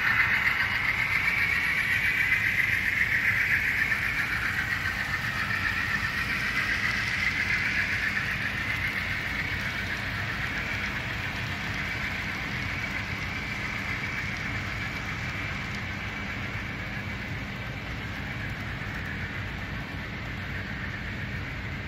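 HO-scale model freight train running along the layout's track, a steady whirring rattle of its motor and wheels on the rails that slowly fades as the train moves away.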